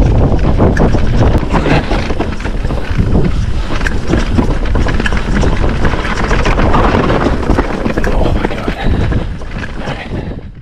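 Wind buffeting the microphone of a mountain bike descending a dirt trail, with tyre rumble and frequent rattling clicks and knocks as the bike runs over bumps and roots. The sound fades out near the end.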